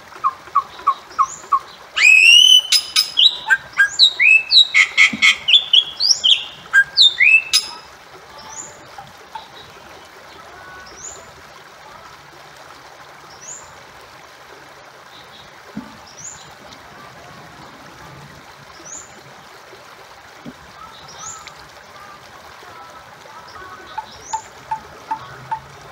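Bali myna calling: a loud burst of rising and falling whistles mixed with sharp clicks lasts about five seconds. Softer high notes then repeat every couple of seconds over a faint steady hiss. A run of short lower notes comes at the start and again near the end.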